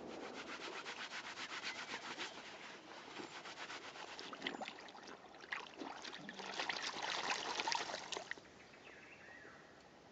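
Hand-washing in shallow river water: a run of fast, even rubbing strokes, then a few seconds of irregular splashing and sloshing as a cloth is scrubbed and swished. It stops abruptly about eight seconds in.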